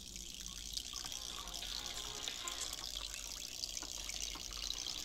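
Steady rush of water into a pot of water, with small splashes and faint clicks.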